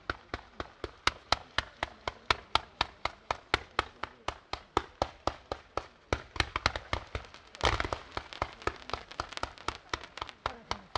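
Fireworks firing in a rapid barrage: a regular string of sharp reports, about five a second, with a louder, denser cluster of bangs nearly eight seconds in.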